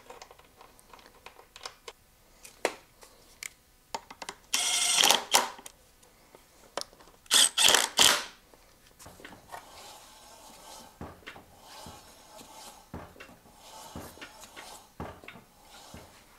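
Cordless power driver running on the motorcycle's front wheel fasteners: one burst of about a second, then three short bursts a couple of seconds later, with small clicks of tools and parts between. After that the front wheel is spun by hand and rubs faintly: it turns with a lot of resistance, which the owner puts down to a sticking brake caliper.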